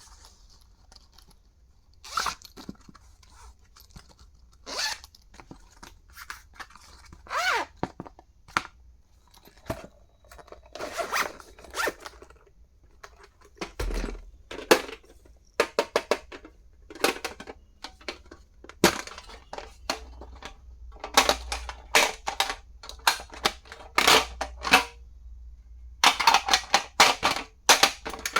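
Handling and unboxing of stationery: irregular sharp clicks, taps and rustling of the items and their packaging, coming in clusters with short pauses and busiest in the second half.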